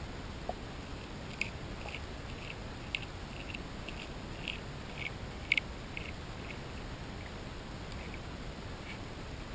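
Grass carp crunching sweetcorn kernels and cat kibble, heard underwater: a string of irregular sharp cracks, about two a second, starting a second or so in, loudest a little past halfway with a quick double crack, over a steady hiss.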